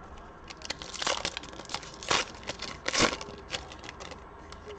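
A 2021 Panini Prizm basketball card pack being torn open by hand, its foil wrapper crinkling and tearing in a string of irregular crackles, the loudest about one, two and three seconds in.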